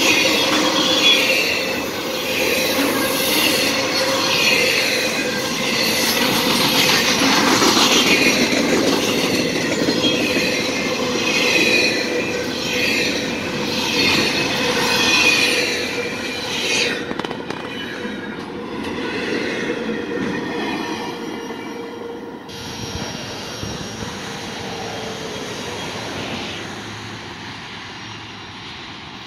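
Intermodal freight train's container and trailer cars rolling past, their wheels clattering over the rails with a steady squealing tone. The sound fades over the last ten seconds or so as the end of the train passes and recedes.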